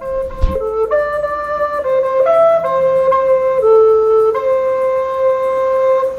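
A melody on a high, flute-like wind instrument: a run of short notes, then a long held note that stops suddenly.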